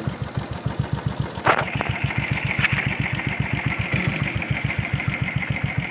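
Royal Enfield Thunderbird 350's single-cylinder four-stroke engine, fitted with an LPG conversion kit, idling steadily with even exhaust thumps at about eight a second. A sharp click comes about a second and a half in, after which a steady high hiss joins the idle.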